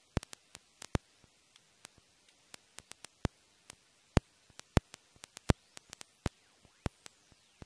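Irregular sharp clicks and pops, several a second, over a near-silent background, like static crackle.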